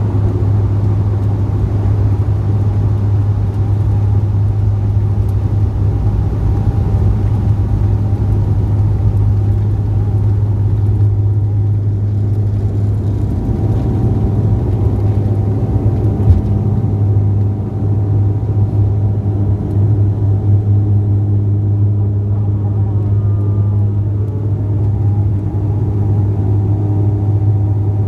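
Steady drone of a running motor vehicle, with a strong low hum that holds level throughout and a slight waver in pitch near the end.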